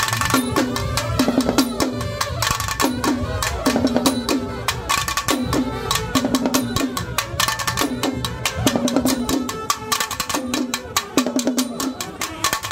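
Nadaswaram and drum band playing a Malayalam film song: a fast, dense drum rhythm of several strokes a second under a repeating reed melody.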